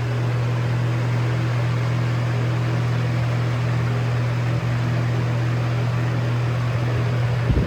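Lasko Air Flex box fan running at high speed: a steady low motor hum under the rush of air from its blades. A brief knock near the end.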